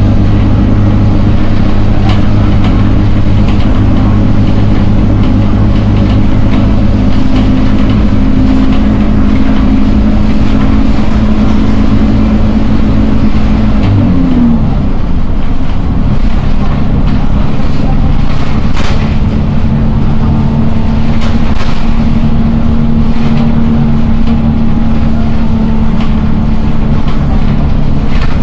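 City bus engine and drivetrain running steadily, heard from inside the passenger cabin. About halfway through its low hum drops quickly in pitch, then settles again at a new steady pitch, with a few light clicks or rattles after that.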